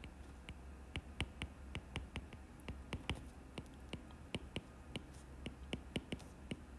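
Stylus tips clicking and tapping on a tablet's glass screen during handwriting: a string of faint, irregular clicks, several a second, over a low steady hum.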